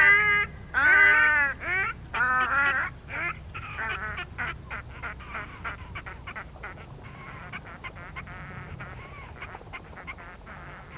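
Whooper swans calling, their calls echoing. Several loud honking calls come in the first three seconds, then a flurry of shorter, fainter calls that thins out.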